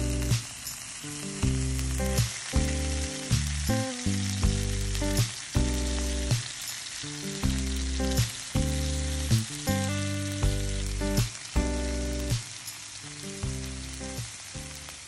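Pork belly slices and kimchi sizzling and frying in fat on a hot griddle pan. Background music plays throughout, a run of notes about every half second.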